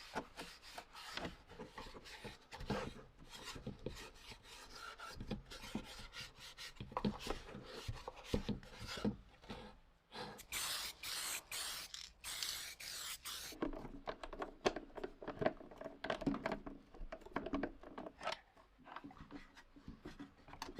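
Hand work on a metal tool: irregular rubbing and scraping strokes with small clicks and knocks. About halfway through comes a few seconds of hissing, broken by short gaps.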